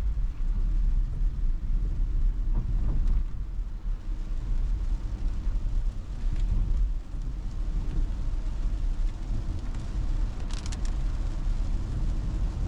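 Road and tyre noise inside the cabin of a moving Tesla electric car on a rain-wet road: a steady low rumble with a light hiss over it, and a brief higher swish about ten seconds in.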